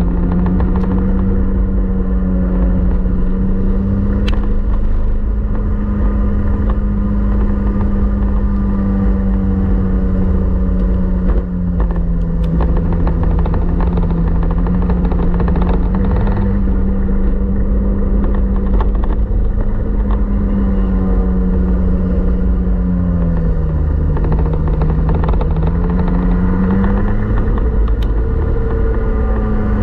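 A 125cc two-stroke TaG kart engine heard onboard at racing speed, its pitch rising and falling with the throttle through the corners. About 23 seconds in it drops lower, then climbs again.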